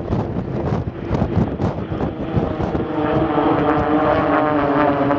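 Propeller-driven Extra 300 aerobatic aircraft flying past: the engine and propeller drone grows out of heavy wind buffeting on the microphone about three seconds in, its pitch falling slightly as it passes.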